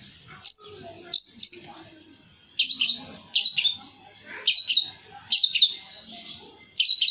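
Long-tailed shrike (cendet) calling: short, sharp, high chirps, mostly in quick pairs, repeated about once a second.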